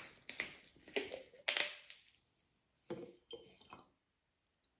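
Small plastic salt bottle being handled: a few sharp clicks and knocks as its screw cap is twisted off, then lighter clinks as it is tipped over a glass bottle of water and the salt goes in.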